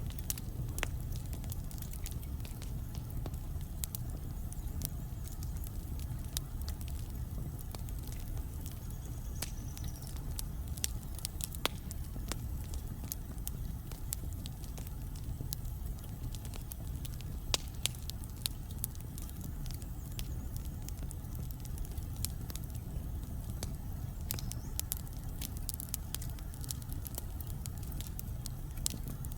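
Wood fire in a fireplace burning steadily: a low rumble of flame with frequent sharp, irregular crackles and pops from the burning logs.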